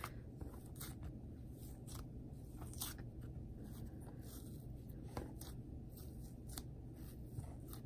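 Hands kneading and pressing a soft, sticky slime, making faint irregular crackles and clicks over a steady low hum.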